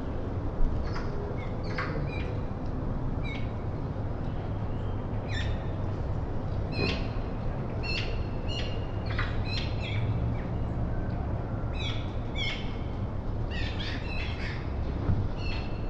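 Wild birds chirping and calling in many short, separate notes, some in quick runs, over a steady low rumble.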